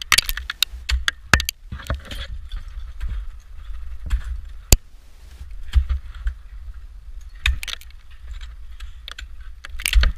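Ice tools striking and hooking into a frozen waterfall: irregular sharp picks and crunches of ice, in small clusters with one very sharp crack near the middle, over a steady low rumble.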